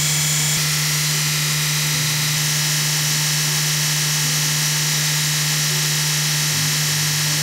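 Belt grinder running steadily: an even electric-motor hum under a constant hiss from the abrasive belt.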